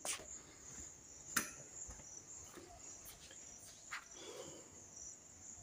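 Faint, steady high-pitched drone of insects, with a few soft clicks.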